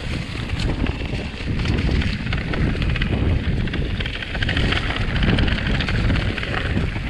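Mountain bike being ridden on a dirt trail: wind rushing over the microphone, with the tyres rolling over dirt and rocks and the bike rattling in many quick clicks.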